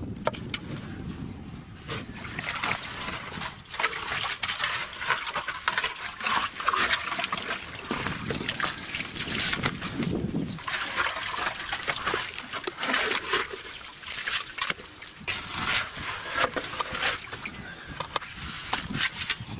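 Shovel digging in a flooded pit: the blade scrapes through wet clay and scoops out muddy water, which splashes and sloshes in irregular strokes.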